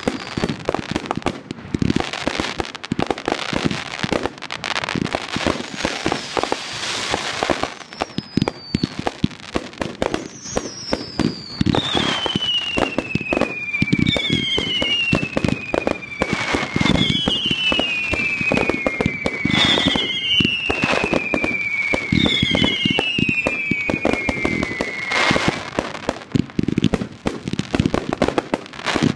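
Aerial fireworks going off in quick succession: a continuous run of bangs and crackling bursts. From about ten seconds in to about twenty-five seconds in, a series of long whistling tones overlap, each falling in pitch.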